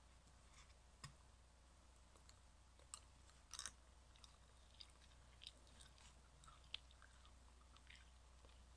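Faint, sparse wet clicks and crackles of a BeanBoozled jelly bean being chewed, in near silence.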